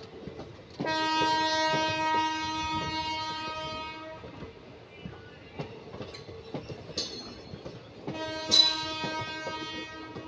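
Locomotive horn sounding two long steady blasts of about three seconds each, the second about four seconds after the first, over the clicking and clanking of passenger coaches rolling over rail joints.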